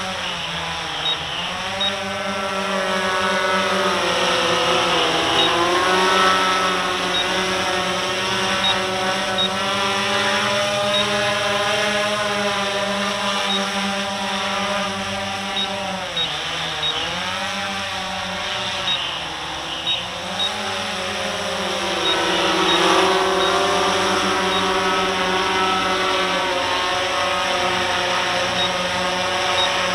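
RC Timer S1100 octocopter's eight electric motors and propellers whining in hover, a steady multi-tone hum whose pitch dips and recovers several times as the motor speeds change.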